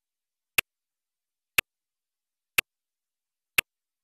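Countdown timer ticking sound effect: a sharp, clock-like tick once a second, four ticks with silence in between.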